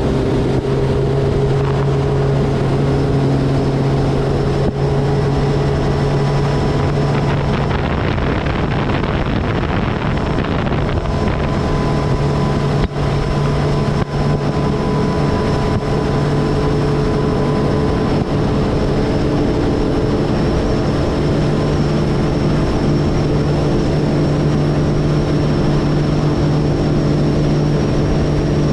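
Boat motor running at a steady pace with an even drone.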